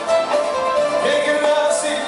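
Live Greek pop music: a male singer singing into a hand-held microphone over band accompaniment, with long held and gliding notes.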